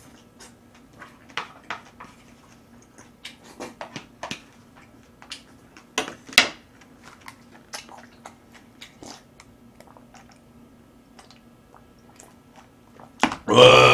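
Close-miked eating: scattered short clicks of chewing and chopsticks on a bowl, then a loud sound about a second long near the end as a bowl is raised and drunk from.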